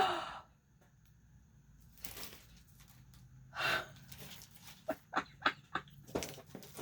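Craft papers and stickers being handled: a short rustle about three and a half seconds in, then a quick run of light taps and clicks.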